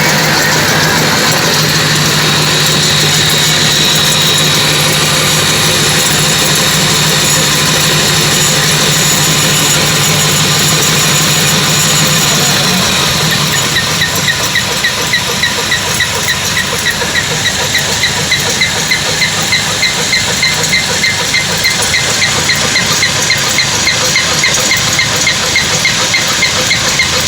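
Car engine running with the wheel turning; about halfway through a regular, rhythmic chirping starts and keeps repeating. It is a noise from a wheel bearing that the mechanic says is coming apart.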